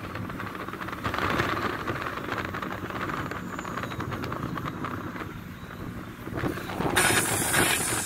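A car driving, heard from inside the cabin: steady road and engine noise with a continuous patter of small rattles, turning louder and hissier near the end.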